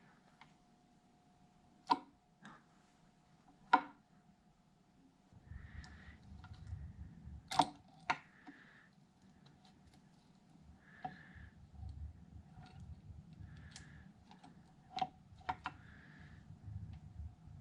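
Sparse, irregular metallic clicks and taps of small engine parts and tools being handled on an ATV cylinder head during camshaft and timing-chain fitting, a few sharper knocks among quieter ticks.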